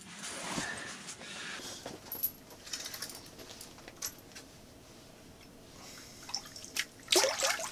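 Ice-fishing rod and spinning reel being wound in as a small lake trout is brought up, giving faint clicks and rustles. A louder burst of noise comes near the end.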